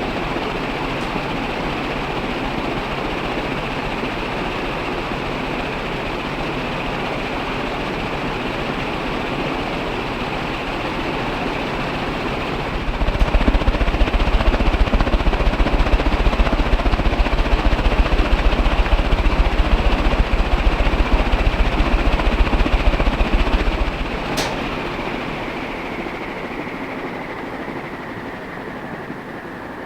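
Canarm CP56 56-inch industrial ceiling fan running fast with a steady whirring hum. From about 13 to 24 seconds in, a heavy pulsing low rumble sits on top of it. Then a sharp click, and the fan's pitch slowly falls and it gets quieter as it slows down.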